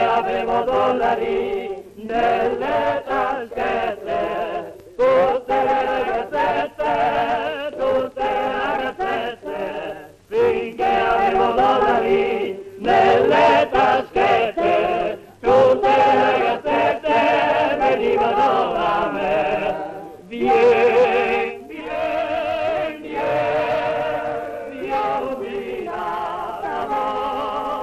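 A group of men singing a song together in chorus, in phrases of a few seconds each with short breaks between them.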